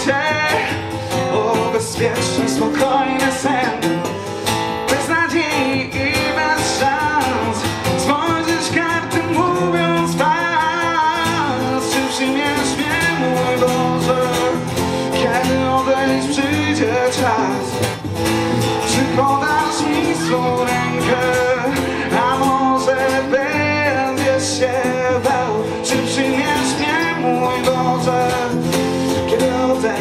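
Live music from an acoustic and electric guitar duo: the acoustic guitar is strummed while the electric guitar plays along.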